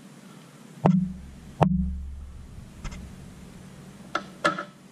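A metal nut driver knocking and clicking on the bolts of an outboard's water pressure valve cover as they are snugged down. There are two sharp knocks about a second in, then a few lighter clicks near the end.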